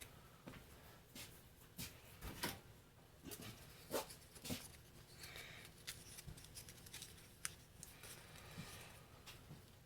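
Faint, irregular small clicks and taps with a little rustling: light handling of small parts or tools, the loudest taps about two and a half and four seconds in.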